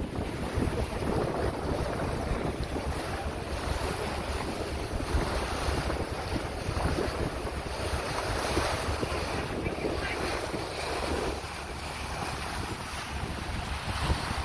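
Wind buffeting the microphone aboard a moving car ferry, with water rushing past the hull.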